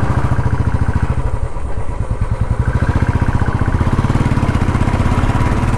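Motorcycle engine running steadily as the bike rides along, heard close up from the rider's seat, with a rapid, even exhaust beat.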